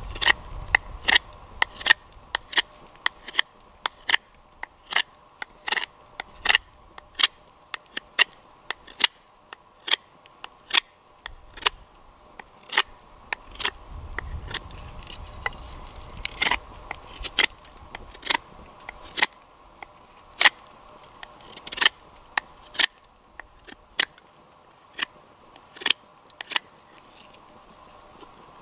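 A knife carving a wooden spatula blank, shaving the wood in short, crisp strokes at irregular intervals, about one or two a second.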